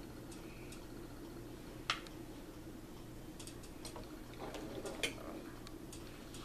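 Small clicks and taps from makeup items being handled, the sharpest about 2 s in and another about 5 s in, with a brief rustle just before the second. A steady low hum runs underneath.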